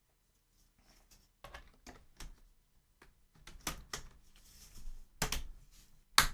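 Plastic screen bezel of an Acer laptop being handled and pressed onto the lid, a series of sharp plastic clicks and knocks that come louder and closer together towards the end as its clips snap into place.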